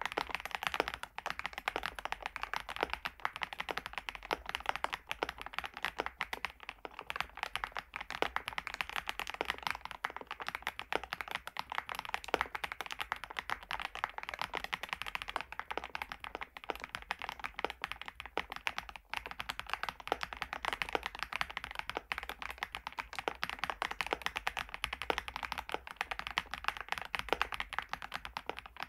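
Typing on an FL-Esports OG-series retro mechanical keyboard: fast, continuous keystrokes, many clicks a second, without a break.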